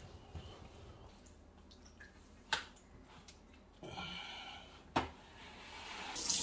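Steel roasting-fork rods clinking against a metal sheet pan twice, about two and a half seconds apart, as a skewered suckling pig is shifted on the pan. A kitchen tap begins to run right at the end.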